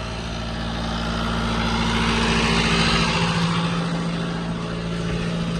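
John Deere tractor running steadily with the hay baler working behind it, a broad mechanical noise that swells a little toward the middle and eases off.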